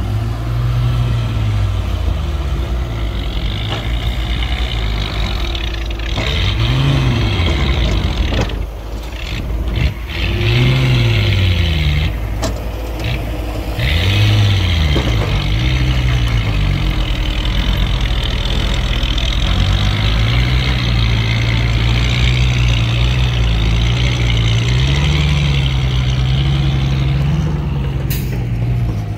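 Heavy diesel engine of earth-moving machinery running throughout, its pitch rising and falling several times as it is revved up and let back down, with a steady high whine above it.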